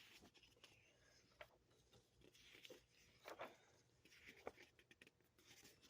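Faint, scattered rustles of comic book pages being turned and handled.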